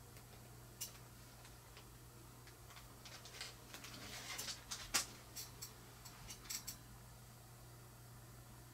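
Faint scattered clicks and light handling noises from working small fly-tying materials and tools at the bench, the sharpest click about five seconds in, over a steady low hum.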